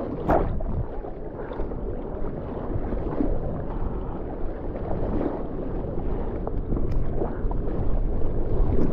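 Seawater splashing and rushing around a surfboard as a surfer paddles hard, each arm stroke churning up a louder splash every second or two, heard close up at the water's surface.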